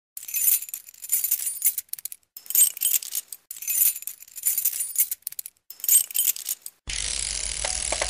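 Bright metallic jingling in short repeated bursts, about one a second, like small bells or shaken keys. About seven seconds in it gives way abruptly to a steady hiss with a low hum.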